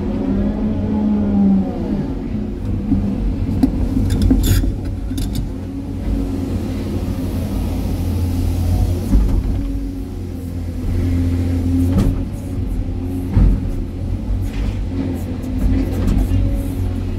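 Excavator's diesel engine and hydraulics running steadily, heard from inside the operator's cab of a new SANY excavator as it digs, with a few sharp knocks of the bucket striking rubble and stone.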